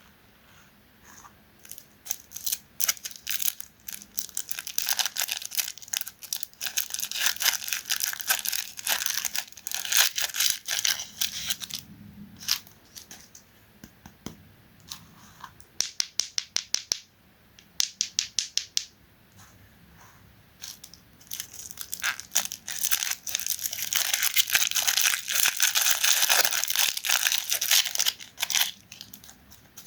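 Close-up crinkling and crunching of a KitKat bar: two long stretches of dense crackling, with a run of quick separate clicks between them.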